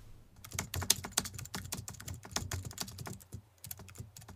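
Computer keyboard typing: a rapid, uneven run of key clicks, laid in as a sound effect under text being typed onto the screen.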